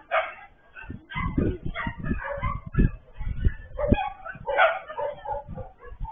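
Dogs barking and yelping in a fight between a German Shepherd and a small dog, with heavy low thuds in the first few seconds. Heard thinly through a security camera's microphone.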